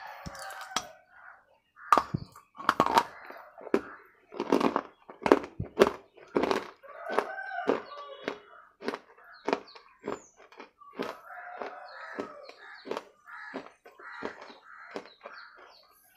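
Close-miked biting and chewing of a water-soaked red bar: repeated sharp crunches and cracks between stretches of wet chewing.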